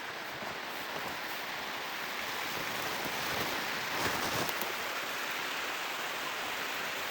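Steady rush of flowing river water, with a few faint clicks about four seconds in.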